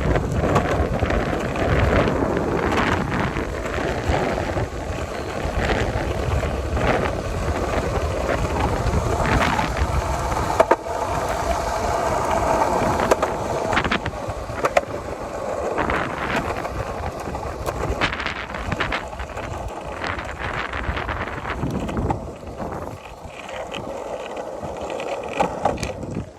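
Longboard wheels rolling over asphalt, drowned in strong wind buffeting the microphone, with a low rumble and a few sharp knocks from the board. It eases off somewhat near the end.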